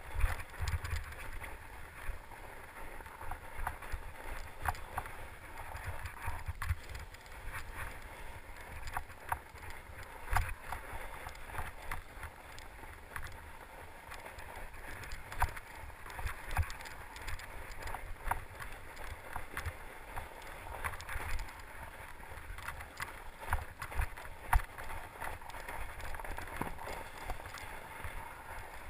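Fat-tyre mountain bike riding over snow, rocks and leaf litter: the tyres roll with a steady hiss, the bike rattles with frequent small clicks and knocks, and low thumps come as it rides over bumps.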